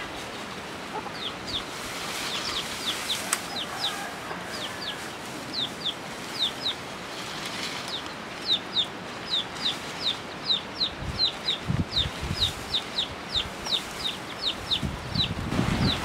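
A bird cheeping: a long series of short, high, falling chirps, often in quick pairs. There are a few low thumps near the end.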